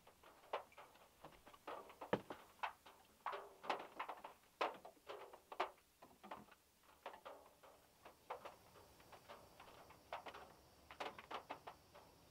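Scattered raindrops tapping on a VW Beetle's metal roof: irregular, uneven taps, several a second.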